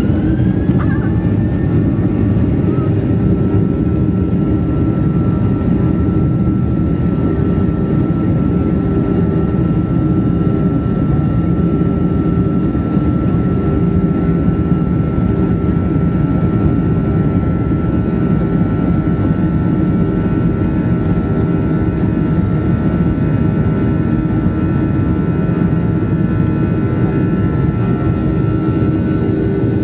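Boeing 737-800's CFM56-7B jet engines spooling up to takeoff thrust, heard from a cabin seat over the wing: a rising whine in the first second or so, then a steady whine over a broad rumble as the aircraft rolls down the runway for takeoff.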